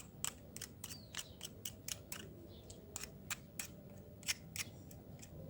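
A run of small, sharp clicks, irregular at roughly three or four a second, from the parts of a Moser hair clipper being handled while it is cleaned of hair.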